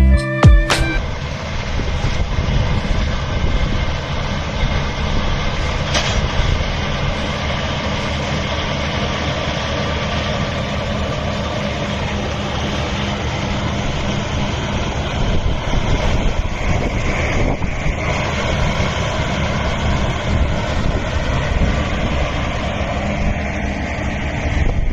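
Music cuts off about a second in, giving way to the engine of a large farm machine running steadily.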